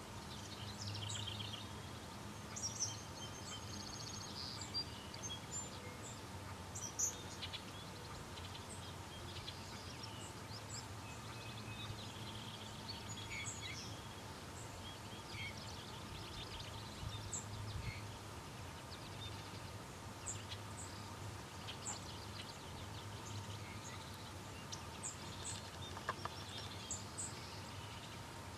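Outdoor riverside ambience: many birds chirping and calling in short, scattered notes, over a faint steady hum.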